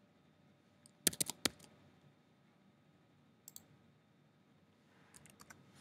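Sharp clicks of a computer mouse and keyboard: a quick run of about five about a second in, a pair a little after halfway, and another short run near the end.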